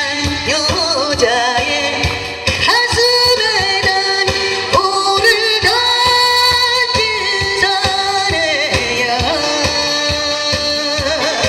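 A woman singing a Korean popular song into a handheld microphone over amplified backing music with a steady drum beat, holding long notes with vibrato.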